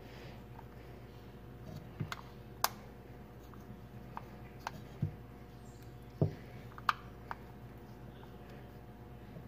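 Scattered sharp clicks and taps of hands handling and lining up a round threaded-collar wiring connector while mating it to its partner, over a faint steady hum.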